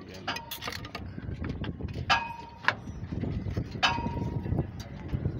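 Steel truck brake shoes knocking and clinking against the drum-brake backing plate and anchor as they are fitted: several sharp metal knocks, three of them ringing briefly with a clear tone.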